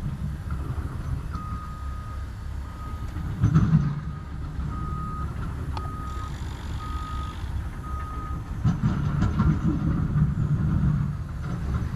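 Atlas Copco PowerRoc T45 drill rig running with a steady low diesel rumble while its warning alarm beeps at one steady pitch, about once a second, stopping a little past two-thirds of the way through. Louder surges of machine noise come a few seconds in and again near the end.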